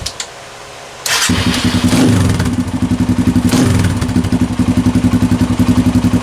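Kawasaki KLX 140G's small single-cylinder four-stroke engine catching from a cold start about a second in, after a short lull in cranking. It runs with a couple of surges at first, then settles into a steady, pulsing idle. This is a cold hard start, typical of the bike's stock carburetor.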